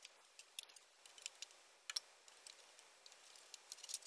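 Faint, irregular small clicks and taps of hands and a plastic pry tool handling the plastic lens optics and LED board of an opened LED aquarium light, getting busier near the end.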